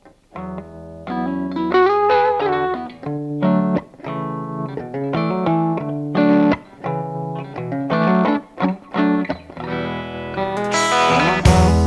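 Rock song intro: an electric guitar with distortion plays a riff of separate phrases with bent notes, then the fuller band with bass and a cymbal crash comes in just before the end.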